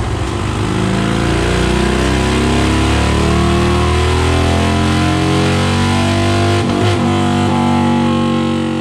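Harley-Davidson 2009 CVO Road Glide V-twin, a big-bore build with a Bassani Road Rage 2-into-1 exhaust, making a wide-open dyno pull: the engine note climbs steadily in pitch for about six seconds, then the throttle comes off and it winds down near the end.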